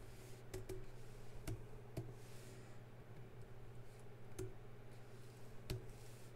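Computer keys pressed one at a time: about six sharp, separate clicks spaced unevenly, over a faint steady low hum.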